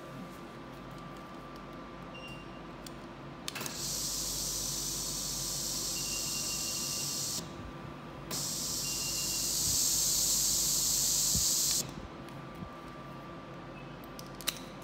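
Vacuum body-slimming machine with air hissing into its open suction handpiece as the pump draws, in two spells of about three and a half seconds with a short break between. The machine's steady hum runs underneath.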